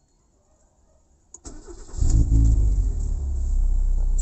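Ford Lynx's four-cylinder car engine is cranked by the starter from about a second and a half in and catches about two seconds in. It rises briefly, then settles into a steady idle.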